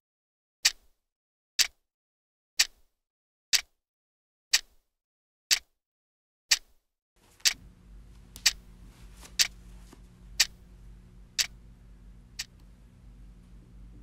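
Clock ticking, one sharp tick a second. About seven seconds in, a low steady hum comes in beneath it, and the ticks stop shortly before the end.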